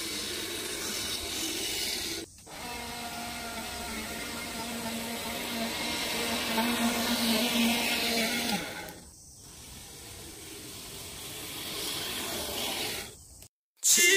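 Lawn mowers cutting grass one after another, with short breaks about two seconds in and again about nine seconds in. First a Baroness LM4D, then an electric Ryobi LM-2810 reel mower whirring with a steady hum, then another mower.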